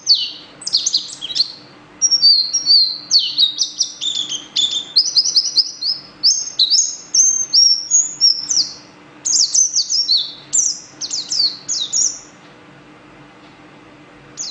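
A yellow songbird singing a long, fast run of high chirps, whistles and trills, with a short break about two seconds in; the song stops about twelve seconds in.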